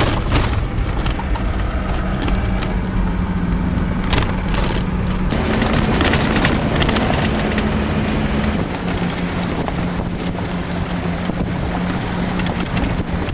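Four-wheel-drive vehicle's engine running steadily while driving on a rough gravel track, with road and wind noise and scattered knocks. The engine note rises slightly about halfway through, then settles back.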